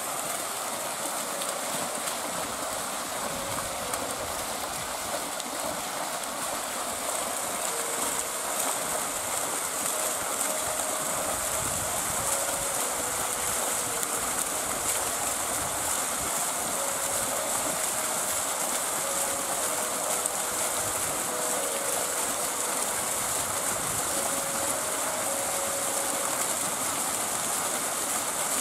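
Water running steadily from fountain jets and down a stepped cascade channel, an even rushing hiss. A faint slow tune of single held notes drifts over it.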